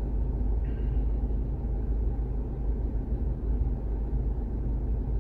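Steady low rumble of tyre and engine noise heard inside a car driving along a highway.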